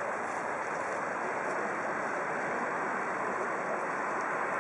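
Steady, even outdoor wash of distant road traffic and flowing river water, with no distinct events, growing slightly louder near the end.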